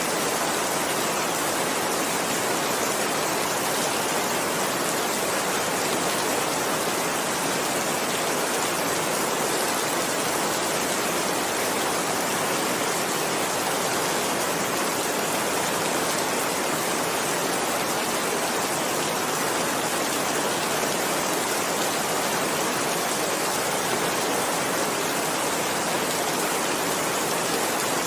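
Heavy rain falling steadily: an even, unbroken rushing hiss.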